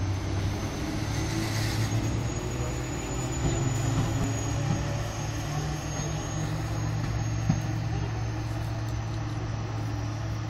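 A rail vehicle's engine running steadily with a low hum, a faint high whine above it. A single short knock about seven and a half seconds in.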